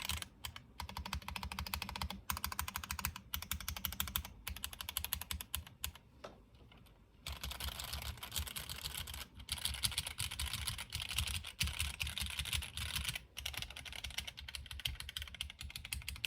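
Typing on a gasket-mounted mechanical keyboard with factory-lubed TTC Gold Pink linear switches, an FR4 plate and GMK keycaps: fast runs of key presses, with a short lull about six seconds in.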